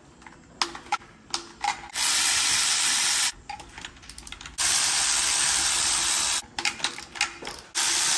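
Electric ratchet spinning out engine bolts in three bursts of about a second or two each, with a few sharp clicks of tool and parts handling before the first.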